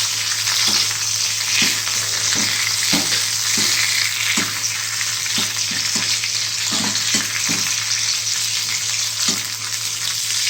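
Thuthuvalai (Solanum trilobatum) leaves sautéing in oil in a pan: a steady sizzle, while the leaves are stirred with the utensil knocking against the pan at irregular intervals.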